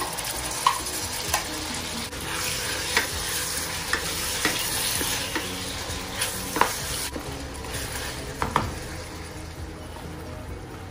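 Raw chicken pieces sizzling as they fry with fish balls in sambal paste in a nonstick wok, a wooden spatula stirring and knocking against the pan every second or so. The sizzle is strongest in the middle and eases off near the end.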